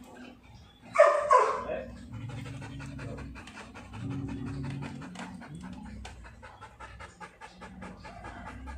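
Belgian Malinois panting fast and steadily with its tongue out. A brief burst of a person's voice comes about a second in.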